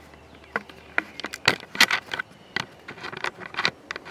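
Irregular clicks, taps and short scrapes of metal parts being handled and moved at a shop press.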